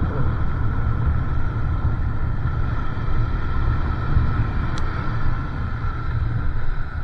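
Motorcycle running steadily while being ridden along a gravel road, with a heavy low rumble throughout. A brief high tick sounds about five seconds in.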